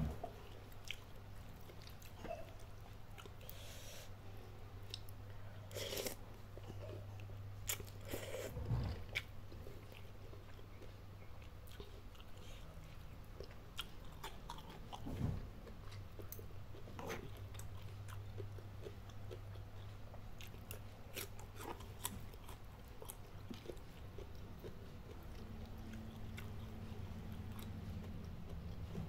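Close-miked eating: chewing and crunchy bites of spicy instant noodles with vegetables and raw chilies. The sharp crunches are scattered through the whole stretch over a steady low hum.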